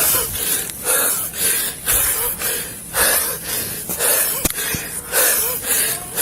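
Heavy, rasping breathing close to the microphone, about one breath a second, wheezing on each breath.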